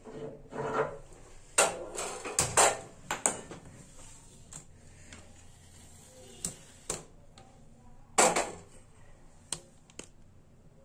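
Aluminium pressure cooker being handled and set onto a gas stove's metal pan support: a run of sharp metal clanks and clicks in the first few seconds, a few more later, and a loud knock near the end.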